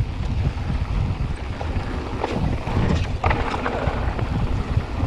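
Mountain bike rolling fast down a dirt singletrack: a steady rumble of tyres on dirt and wind on the microphone, with frequent short clicks and knocks from the bike rattling over bumps, a cluster of them a little after two and three seconds in.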